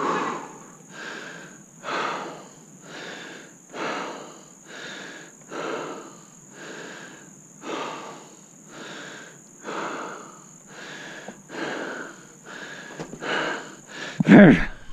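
A man breathing hard and rhythmically, in and out about once a second, winded from dragging a heavy log by hand. A louder, heavier sound comes near the end.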